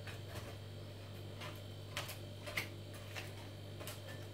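Light, irregular clicks of tongs against a metal wire grill rack as chicken wings are lifted and turned over, with a low steady hum underneath.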